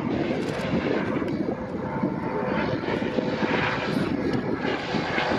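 Twin-turbine Eurocopter AS365 Dauphin helicopter flying by, its rotor and turbines running steadily.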